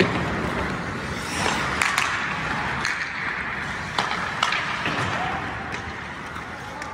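Ice hockey play: skates scraping on the ice, with several sharp clacks of sticks and puck scattered through.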